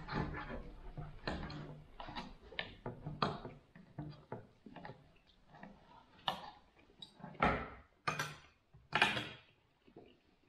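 Cutlery and crockery clinking and scraping as a meal is eaten: irregular light knocks, with several longer, louder scrapes in the second half.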